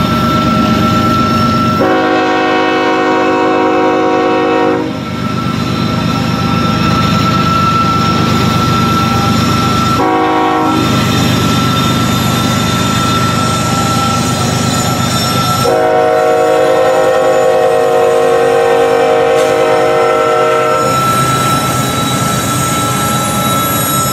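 Diesel locomotive horn sounding three blasts over a running diesel engine: a long one about two seconds in, a short one about ten seconds in, and a longer one from about sixteen to twenty-one seconds, the horn signal for the grade crossings it passes.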